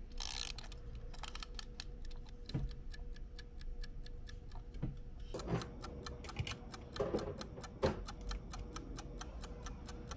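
A run of light, fairly even ticks or clicks, several a second, with a few louder knocks in the second half and a faint steady hum underneath.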